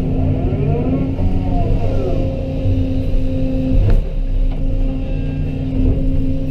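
An excavator's diesel engine runs steadily under load while its hydraulics whine up and down in pitch. There is a single sharp metal knock about four seconds in.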